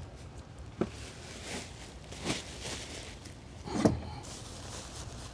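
Grass-clippings bag being handled and carried: three separate soft knocks, the last the loudest, over a low steady hum.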